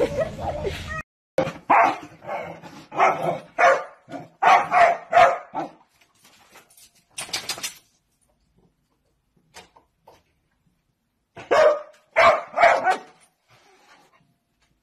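A dog barking in short bouts of several quick barks, with quiet pauses between the bouts.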